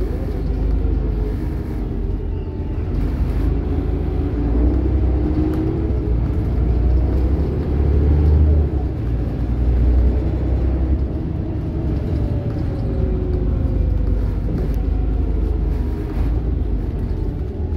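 Volvo B7RLE single-deck bus under way, heard from inside the passenger saloon: a steady low engine and road rumble, with a whine that rises and falls in pitch as the bus changes speed.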